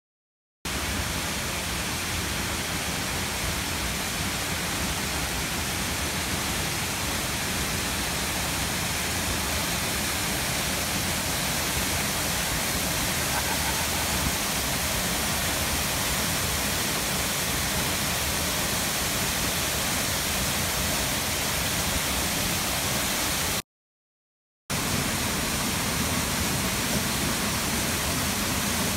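Silver Run Falls pouring into its plunge pool: a steady, unbroken rush of falling water. The sound drops out completely for about a second near the end.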